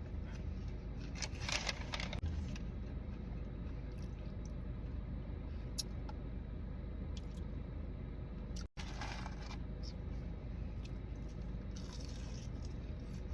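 Eating and food-handling noises: a few short rustling, crunching bursts over a steady low hum, with the sound cutting out for an instant about two-thirds of the way through.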